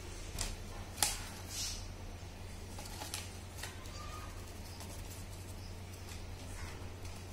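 Stiff craft paper being handled: the fringed paper strip and the chart-paper lantern rustle and tap against each other, with a sharp click about a second in and scattered lighter ticks after it. A low steady hum runs underneath.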